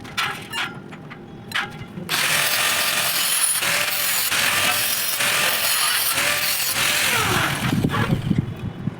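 An angle grinder running on steel for about six seconds, starting about two seconds in, its pitch dipping and recovering as it bites into the metal. Light metal taps come before it, and low knocks near the end.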